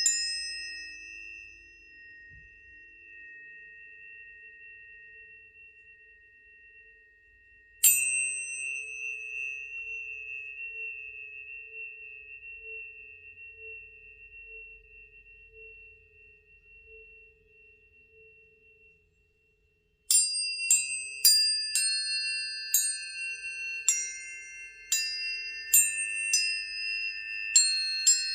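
Planetary tuning forks struck and left to ring with clear, steady high tones that fade slowly. One fork is struck about eight seconds in and rings for around ten seconds; near the end a quick run of strikes sets several forks ringing together at different pitches.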